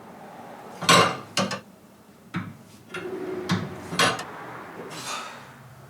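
A wrench clinking against the hydraulic fittings of a skid steer's valve while they are being tightened: half a dozen sharp, irregular knocks.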